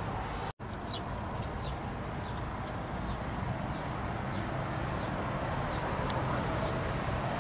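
Steady outdoor background noise with a few faint, short, high chirps scattered through it; the sound cuts out for an instant about half a second in.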